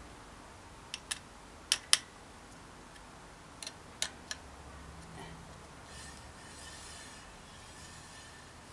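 A handful of short, sharp metallic clicks as a hex key is fitted into and turns the mounting bolts of a Promax disc brake caliper, shifting the caliper back slightly so the rotor stops rubbing on one side.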